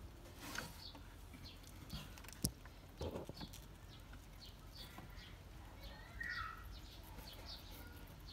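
Eurasian red squirrel gnawing and chewing an apple slice: faint, quick nibbling crunches, with a sharp click about two and a half seconds in.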